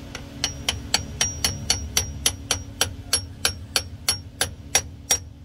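Hammer tapping steadily on a steel socket used as a push tool, about four light taps a second, each with a brief high metallic ring, driving a new filter seal into the aluminium bore of a GM 6L80 transmission.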